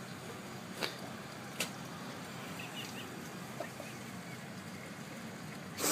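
A Bengal cat sniffing and nibbling at catnip leaves. There are two short, sharp sniffs about a second and a second and a half in, and another at the very end, over a steady low hum.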